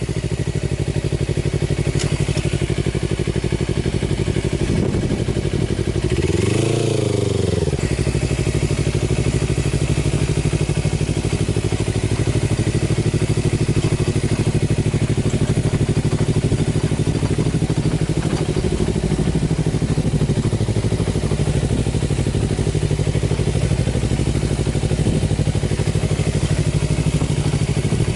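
Kawasaki Versys-X parallel-twin motorcycle engine running steadily, its pitch rising and falling once about seven seconds in.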